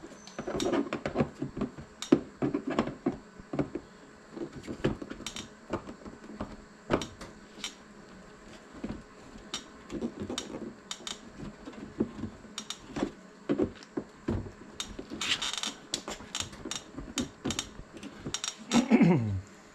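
A hand tool prying and clicking at the plastic push-pin clips of a car's fender liner: an irregular run of sharp clicks and knocks with some scraping. Near the end comes a louder sound that falls steeply in pitch.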